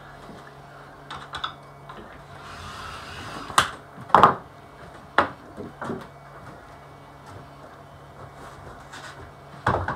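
A mat cutter's blade head slides along its rail through mat board for about a second, then several sharp clacks as the rail and board are handled, the loudest about four seconds in.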